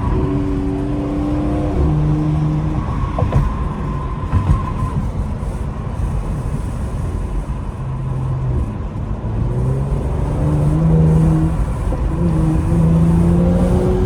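Car engine accelerating through the gears in Sport Plus mode. Its pitch climbs, drops at each shift and climbs again several times, with two short sharp cracks about three and four and a half seconds in.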